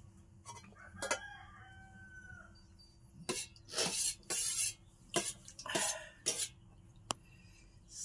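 Steel spoon and ladle scraping and clinking against stainless steel pots, several short strokes in a row, as food is served from them. A rooster crows faintly in the background about a second in.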